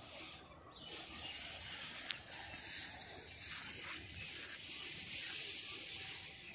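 Steady high hiss of outdoor ambience, with a single sharp click about two seconds in.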